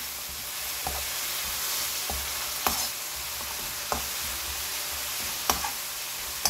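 Dried shrimp, garlic scapes and walnuts sizzling in a frying pan as a spatula stirs them, the little water just added to the seasoning cooking down. A handful of sharp taps of the spatula against the pan stand out over the steady sizzle.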